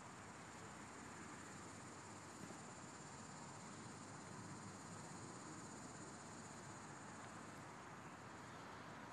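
Faint outdoor quiet with a steady high-pitched insect trill, a little stronger in the middle, over a low even hiss.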